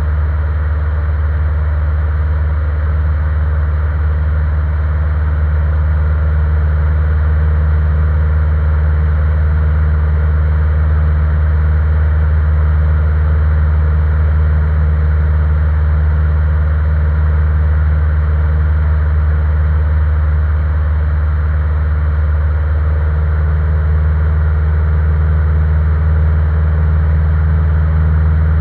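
Single-engine light aircraft's piston engine and propeller droning steadily in flight, heard from inside the cockpit as a low, even hum.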